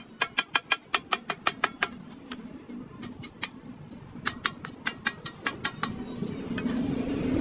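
Rapid sharp taps with a brief ringing tone, about five a second, in runs broken by short pauses; a low rumble builds near the end.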